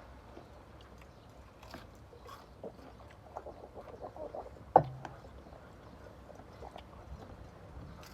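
People chewing and eating at close range: soft scattered crunches and clicks, with one sharp click a little past the midpoint.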